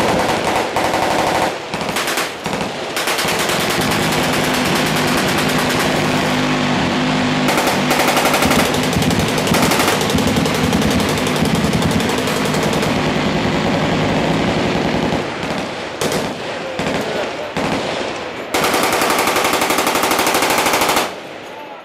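Sustained, very rapid machine-gun fire in long bursts, with the continuous buzz of an electrically driven minigun (M134 type) strongest through the middle. The firing stops abruptly near the end.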